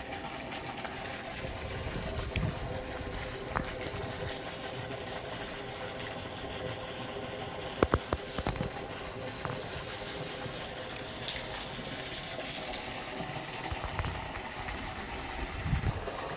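Steady rush of flowing water, with two sharp clicks about eight seconds in.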